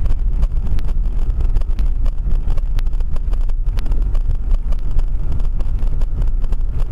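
Dash camera inside a moving car picking up a steady low road and engine rumble from driving on a snow-covered road, with many small ticks and knocks scattered through it.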